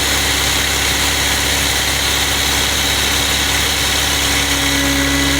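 Crane engine running steadily at a constant pitch as it holds and swings a cut section of tree. A steady tone joins the drone a little before the end, as the engine or its hydraulics take on more.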